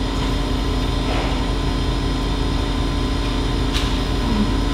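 Steady background hum and hiss with several constant tones, like air conditioning or equipment noise in a room.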